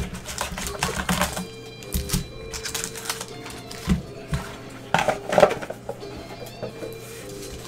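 Cardboard card box being opened and a foil-wrapped card pack pulled out and handled: an irregular run of knocks, scrapes and crinkles, loudest about five seconds in, over background music.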